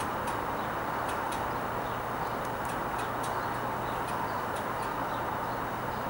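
Steady wash of distant city traffic noise with a constant low hum under it, and scattered short, high chirps or ticks over the top.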